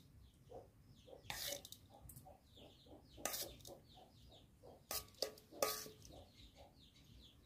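A metal spoon clinking and scraping against bowls a few times as portions are spooned out, over soft, repeated clucking of chickens.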